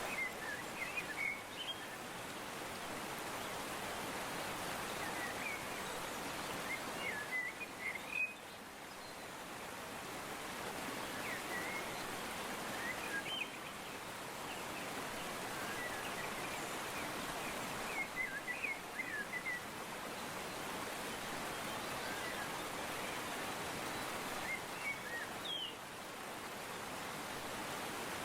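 Nature ambience: a steady rushing noise like running water, with clusters of short bird chirps every few seconds.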